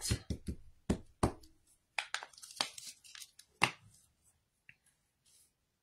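Ink pad dabbed again and again onto a clear stamp on an acrylic block: a quick run of light taps in the first second and a half, followed by a few scattered clicks and knocks as the pad and stamp block are handled.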